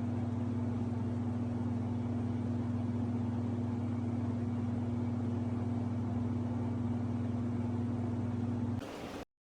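A steady low hum, unchanging in pitch and level, that cuts off abruptly about nine seconds in.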